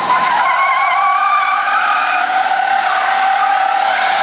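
Truck tyres squealing continuously as they spin in place in a burnout. The squeal is loud and steady, with its pitch wavering and drifting slowly lower.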